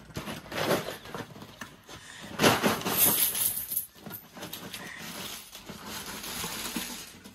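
Plastic packaging and paper banknotes crinkling and rustling as a savings container is torn open and its rolled notes tipped out. The rustling is loudest a little over two seconds in.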